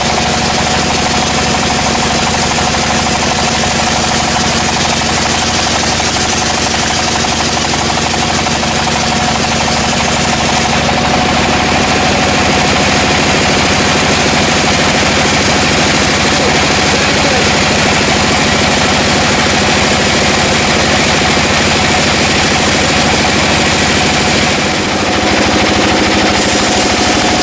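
Sawmill machinery running: an engine with a rapid, even firing beat under a dense mechanical noise. The sound changes character twice, about 11 and 25 seconds in.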